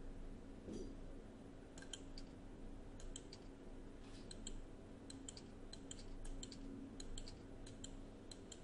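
Faint, irregular clicking from a computer, roughly three sharp clicks a second, over a low steady hum.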